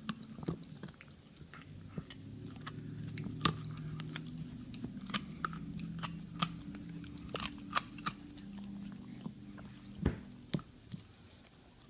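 Shiba Inu gnawing a bully stick: irregular sharp cracks and crunches as its teeth bite into the hard dried stick, one louder crack about ten seconds in. A low hum runs underneath for most of it.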